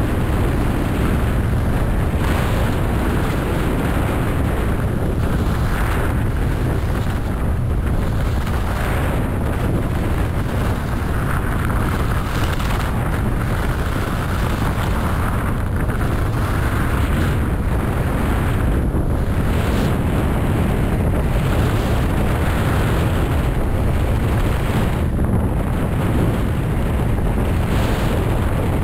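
Wind buffeting the microphone of a camera moving at speed down a ski slope, a steady low rumble, with the hiss of skis running over snow swelling and fading every second or two through the turns.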